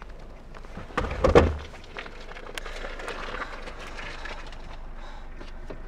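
A heavy thump about a second in, then a steady haze of outdoor background noise.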